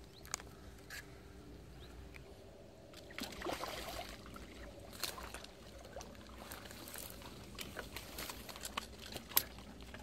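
Light water sloshing and trickling at the river's edge, with a fuller splash-like burst about three and a half seconds in and scattered small clicks and rustles.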